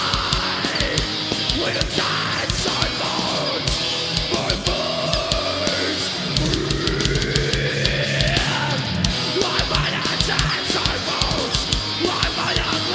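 Groove metal band playing live: heavy distorted electric guitars over driving drums.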